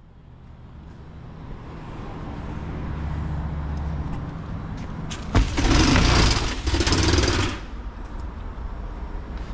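Fire engine's engine running with a steady low rumble; about five seconds in, a loud rattling rush lasting about two seconds, with a brief break, as a roll-up compartment door is rolled open.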